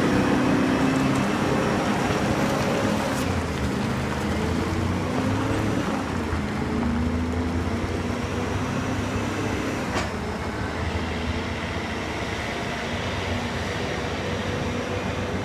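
Loaded Kenworth 850 logging truck's 12V71 twin-turbo Detroit Diesel two-stroke V12 working under load, its engine speed dropping and climbing again a few times, slowly getting quieter as the truck moves away. Two brief sharp clicks, about three and ten seconds in.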